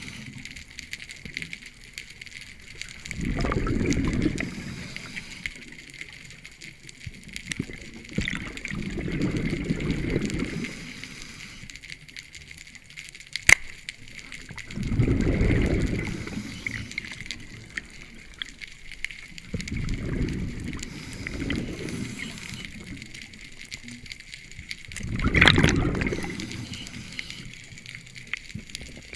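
Scuba diver breathing through a regulator underwater: a bubbling rush of exhaled air comes about every five to six seconds, five times, with a sharp click about halfway.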